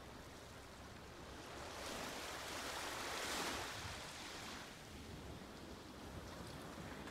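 Ocean waves breaking on a shore: a wave swells in about a second and a half in, peaks, and washes back out, over a steady low hiss of surf.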